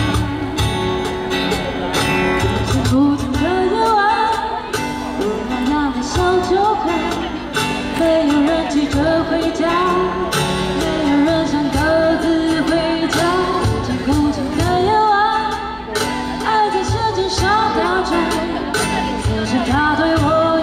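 A woman singing a light pop song live, over an instrumental accompaniment.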